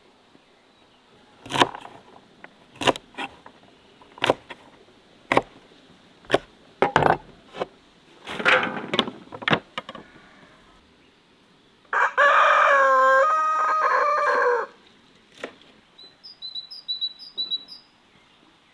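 A run of sharp, irregular knocks of a knife chopping on a wooden cutting board, then a rooster crows once, one long call about twelve seconds in. Small birds chirp near the end.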